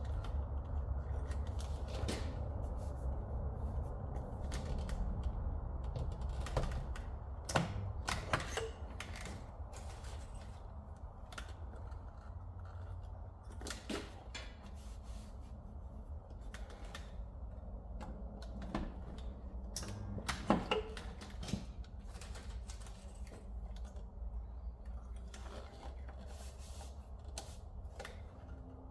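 Stud welder firing pull studs onto the car's steel body panel: irregular sharp snaps and clicks, a few close together, over a steady low hum.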